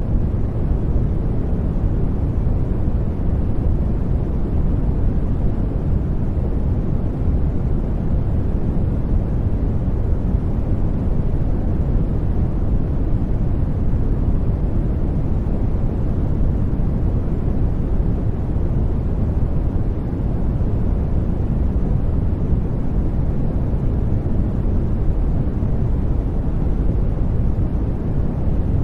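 Steady noise track for studying, even and unchanging, deep-sounding with most of its energy low and little hiss.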